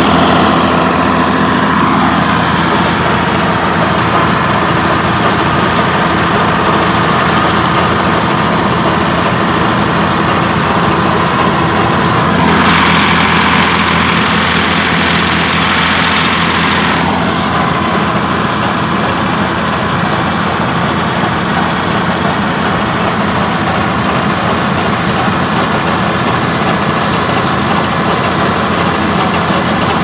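New Holland 8070 combine harvester running steadily under load, its engine and threshing machinery making a continuous dense drone. For a few seconds past the middle the sound turns harsher and hissier.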